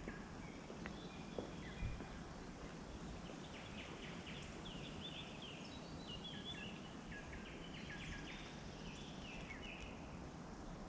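Forest ambience: small birds singing in repeated short chirping phrases over a steady background hiss, with a few faint clicks in the first two seconds.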